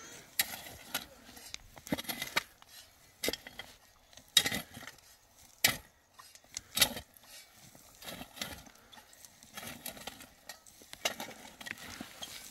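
A series of irregular knocks, clinks and scrapes, a dozen or so, with short quiet gaps between them.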